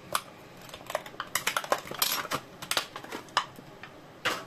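Hot Wheels blister pack being pried and torn open by hand: a string of sharp plastic clicks and crackles, with a louder tearing crackle about two seconds in and a last short rasp near the end.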